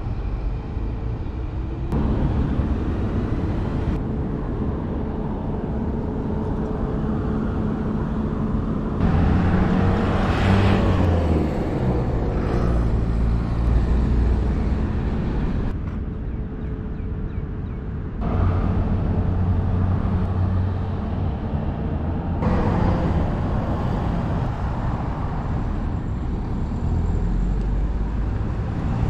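Road traffic noise: cars and buses running on a multi-lane street, with a steady low rumble. It grows louder for a few seconds about ten seconds in, and the background changes abruptly several times.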